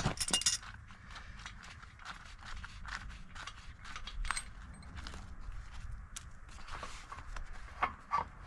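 Footsteps and scattered light knocks and clicks of handled gear, with a louder clatter right at the start.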